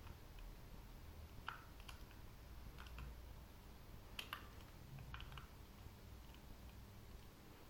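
Faint, irregular small clicks and ticks from a small screwdriver turning the screws in the plastic underside of a Microsoft Mobile Mouse 3500, a handful over several seconds with a louder double click about four seconds in.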